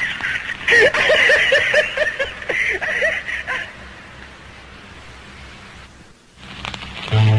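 A person laughing in a quick run of short bursts, about four a second, for roughly three seconds. Faint hiss follows, and a music jingle with steady low notes starts near the end.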